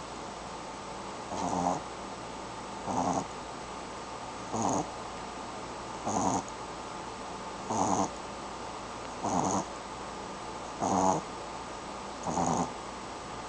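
A sleeping pet snoring in a steady rhythm, one short snore about every second and a half.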